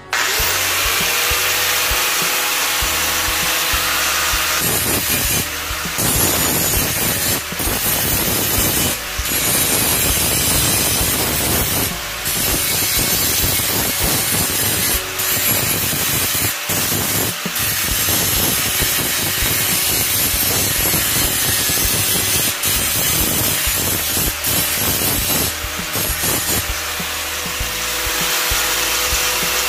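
Handheld angle grinder starting up and running free with a steady whine, then grinding rust off a steel bolo blade with a harsh, continuous abrasive rasp, broken by short gaps as the disc lifts off the metal. Near the end it spins free again as the blade is raised clear.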